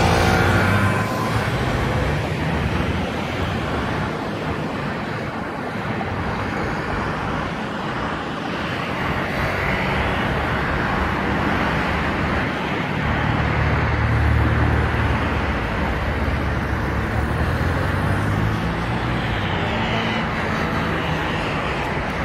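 City road traffic: cars running and passing in a steady stream of engine and tyre noise, with a louder engine rumble as vehicles go by about two-thirds of the way through.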